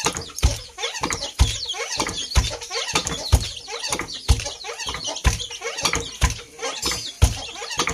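A wooden dhenki rice-husking pestle pounding rice in its floor pit, with a heavy thud about once a second and a lighter knock between each stroke. Birds chirp and cluck throughout.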